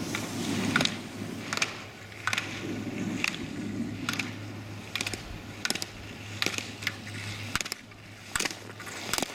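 Slalom gates struck by a skier in turn after turn: a sharp clack about every second as the hinged poles are knocked aside, with ski edges scraping on hard snow between the hits.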